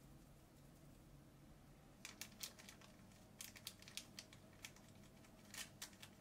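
Faint crinkling of a paper baking-powder sachet and small ticks of a metal teaspoon scooping from it, a scatter of short, sharp little sounds beginning about two seconds in.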